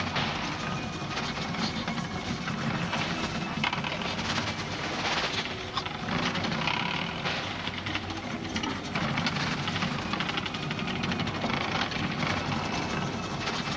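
Cartoon soundtrack sound effect: a steady rushing hiss with a fine rapid crackle, swelling and easing every second or so.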